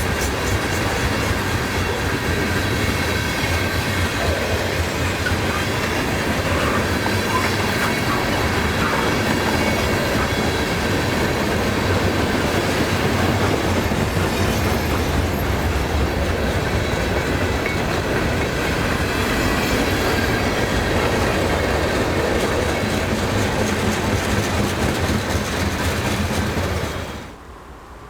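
Freight train rolling past close by, a loud steady rumble with wheels clacking over the rail joints. The sound drops off sharply about a second before the end, leaving a quieter background rumble.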